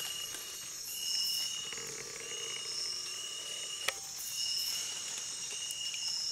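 Night insect chorus of crickets or katydids: high-pitched trills repeating in pulses about a second long over a steady higher hiss. A single sharp click about four seconds in.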